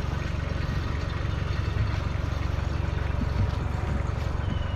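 A vehicle engine idling steadily, a low, even rumble with no change in speed.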